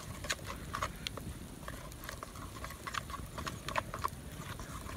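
A spoon knocking and scraping against a metal mixing bowl as damper dough is stirred: irregular light clicks, a few a second.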